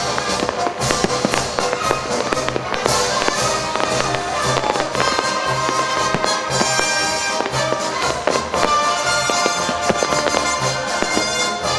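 Fireworks popping and crackling throughout over loud music, with the music the louder of the two.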